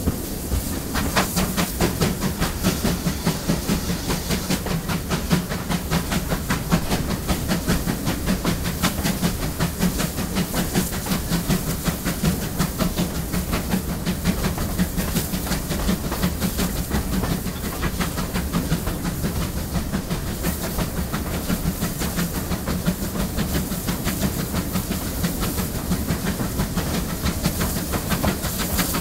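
GWR Collett Goods 0-6-0 steam locomotive running under steam, heard from the footplate: a quick, even beat of exhaust, with steam hiss and the wheels running on the rails. The beat becomes steady about a second in.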